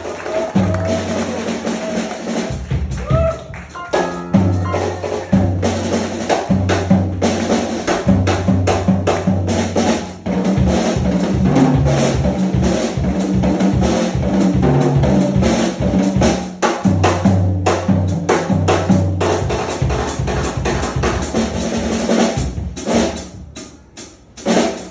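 Live New Orleans jazz band playing, with drums prominent over a steady bass line. Near the end the band thins out to a few scattered drum hits.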